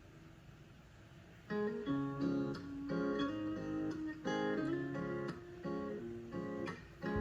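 Music: acoustic guitar playing chords, starting after a quiet gap of about a second and a half.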